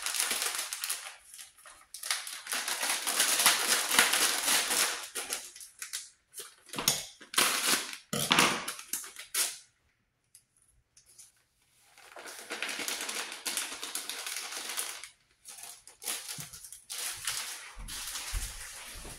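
Paper seasoning packets crinkling and tearing in several noisy spells as seasoning is shaken out of them into a pan.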